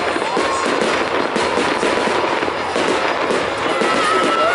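Aerial fireworks going off in a rapid, continuous crackle of many bursts and bangs. A thin, slightly rising whistle comes in near the end.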